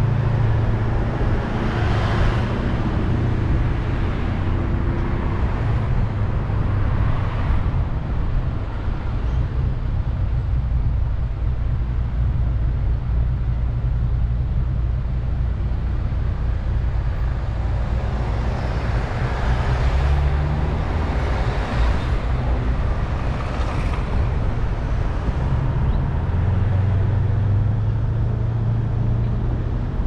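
Car being driven, with a steady low engine and road rumble. Swells of tyre and road noise come about two seconds in, again around seven seconds, and again from about twenty seconds in.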